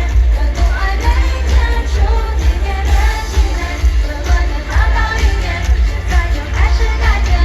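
Live Mandopop concert music: singing over a loud band backing with a heavy, steady bass.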